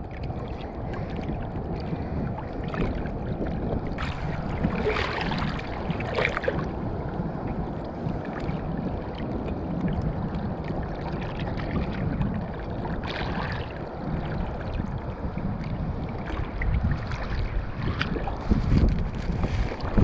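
Sea water lapping and splashing around an inner-tube fishing float, with wind buffeting the microphone. A few brief knocks and rustles come through, about four to six seconds in and again near the middle, as a fish is handled and unhooked.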